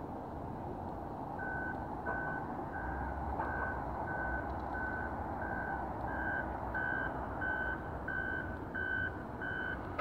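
A vehicle's back-up alarm beeping steadily at one pitch, about three beeps every two seconds, starting about a second in, over a steady low engine rumble.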